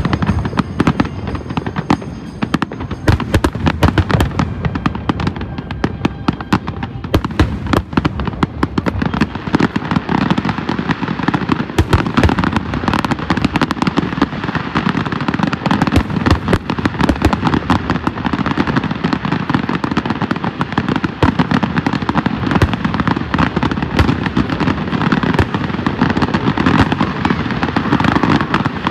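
Aerial fireworks display: a loud, continuous barrage of shell bursts, many bangs and crackles coming close together without a break.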